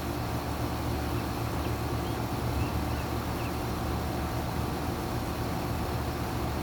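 Outdoor condensing unit of a 2019 Carrier Comfort central air conditioner running steadily: a low hum under an even rushing noise.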